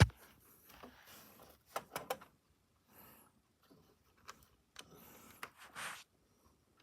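Handling noise: a sharp click right at the start, then scattered small clicks and taps with soft rustling as things are picked up and handled. No doorbell chime sounds.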